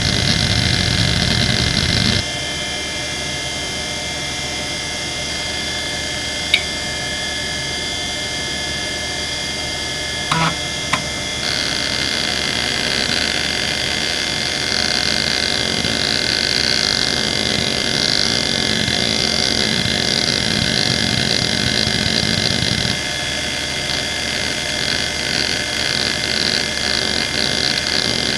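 Quantum ProDrive LPS 270AT 3.5-inch hard drive spinning with a steady whine. Busy seek chatter from its head actuator during a benchmark stops about two seconds in. After a quieter stretch with a few clicks, the heads start seeking again in sweeping back-and-forth patterns, a rippling, repeating seek noise.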